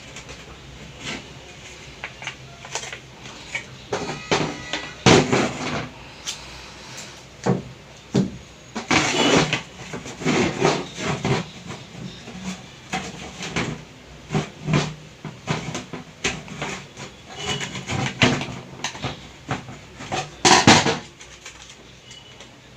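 Hand work on a mixer grinder's base: a string of irregular plastic and metal clicks, knocks and rattles as its MCB overload cutout is fitted and screwed tight, with the loudest clatters about 5, 9 and 20 seconds in.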